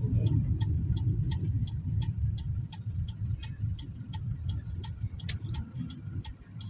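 Turn-signal indicator ticking in a truck cab, even clicks about three a second over the low rumble of the engine and road as the truck slows for a turn.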